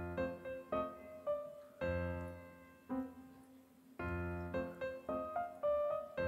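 Slow piano music: a chord struck about every two seconds, with single notes in between.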